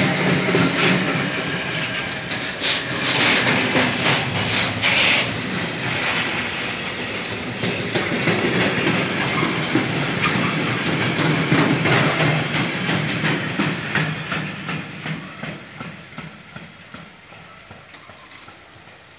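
Freight train wagons rolling past close by, their wheels clattering over the rail joints. The clatter fades away over the last few seconds as the end of the train passes.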